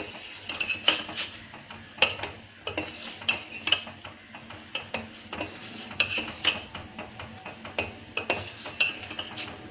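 A utensil stirring in a cooking pot, knocking and clinking against it a dozen or so times at an irregular pace.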